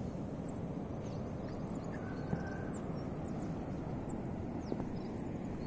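Steady low rush of wind on the microphone, with faint, quick, high bird chirps scattered throughout and one short whistled note about two seconds in.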